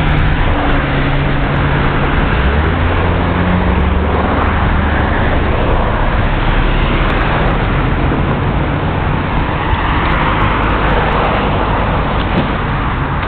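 Road traffic passing close by: a heavy vehicle's low engine hum in the first few seconds, then the tyre noise of passing cars, swelling about ten seconds in.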